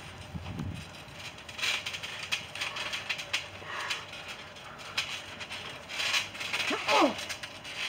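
Trampoline springs and frame creaking and clicking irregularly as wrestlers shift and step on the mat, with a short falling squeal about seven seconds in.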